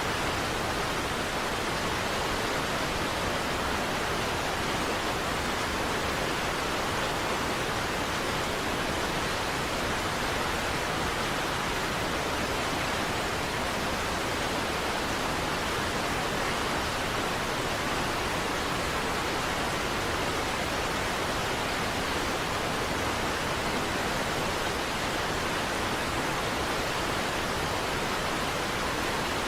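Niagara Falls waterfall: a constant, even rush of falling water with no changes or separate events.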